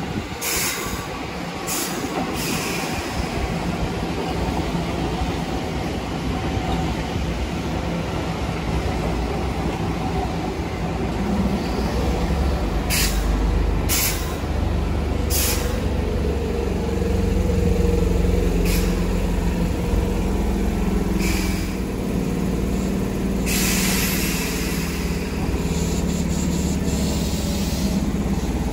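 Keihan Main Line electric train at a station platform: a steady rumble that grows louder, broken by several short hisses of air from the brakes, most of them in the second half.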